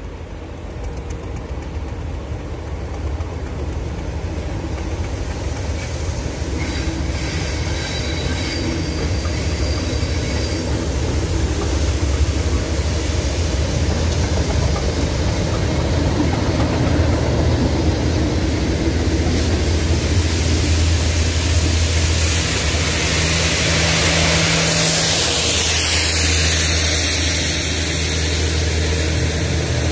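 A pair of Class 37 diesel locomotives, English Electric V12s, running under power with the Rail Head Treatment Train: a steady low engine note that grows louder as the leading loco approaches. From about two-thirds of the way through, a rushing hiss of wheels and passing wagons builds as the water-tank wagons and the rear locomotive go close by.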